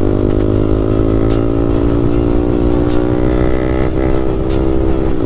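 Yamaha MT-15's 155 cc single-cylinder engine, fitted with a loud aftermarket exhaust, pulling hard under acceleration with its pitch climbing slowly. There is a brief break about four seconds in, likely a gear change, before it pulls on.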